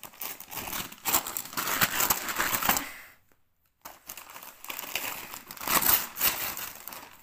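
Christmas wrapping paper being torn open and crumpled by hand, a dense crackling rustle in two bouts with a short pause about three seconds in.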